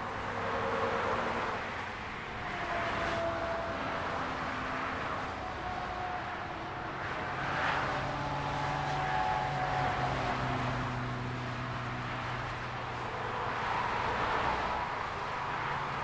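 Dense autobahn traffic: a continuous rush of tyres and engines from cars and lorries, swelling each time vehicles pass close by. A low engine drone from heavy lorries runs through the middle stretch.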